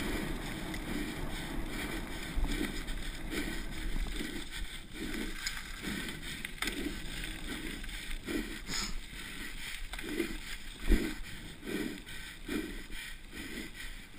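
A downhill mountain-bike racer's hard, fast breathing, one to two breaths a second, over a steady rush of wind and tyre noise as the bike descends. About eleven seconds in there is a single sharp knock, the loudest sound.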